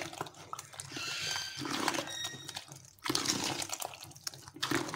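Spoon stirring a thick yogurt mixture of chickpeas and potato in a plastic bowl: wet, sloppy stirring sounds in uneven strokes.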